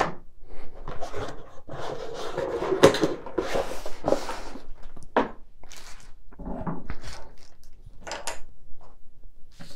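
A cardboard box being closed and slid across a wooden tabletop: irregular rubbing and scraping of cardboard, with a few light knocks.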